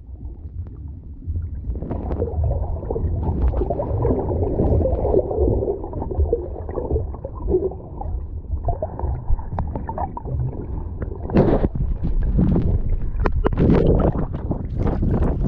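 Water sloshing and gurgling over a low rumble, with a few sharp clicks about eleven seconds in.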